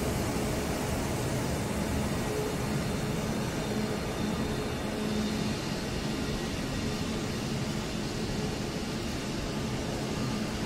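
Northern passenger multiple-unit train slowly pulling along the platform, a steady hum with a low droning tone underneath.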